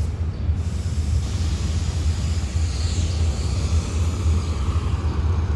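Diesel locomotive engine running with a steady low rumble as the locomotive starts to move during shunting, with a hiss joining about a second in.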